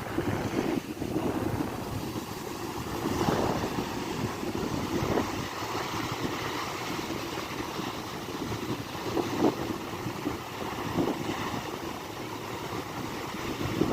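Sea surf breaking and washing ashore in a continuous rush, swelling every few seconds, with wind buffeting the microphone.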